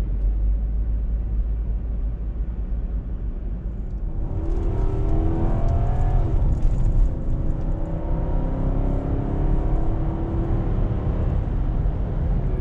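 Nissan SUV's V8 engine and road noise heard from inside the cabin while driving, with a steady low rumble. From about four seconds in, the engine note climbs slowly as the car accelerates.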